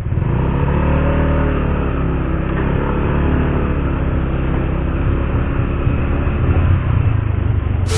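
Motorcycle engine running as the bike rides slowly along a rough gravel road, its pitch rising and falling with the throttle.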